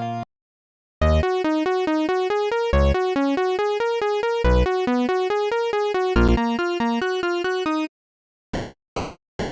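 Synthesizer music: a quick run of short staccato keyboard notes, about seven a second, with a deep bass note roughly every couple of seconds. The tune cuts off near the end, and a string of short, evenly spaced notes begins after a brief silence.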